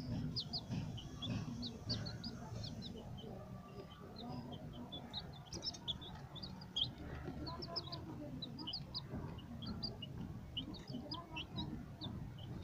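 White Leghorn chicks peeping: many short, high cheeps scattered throughout, over a steady low rumble.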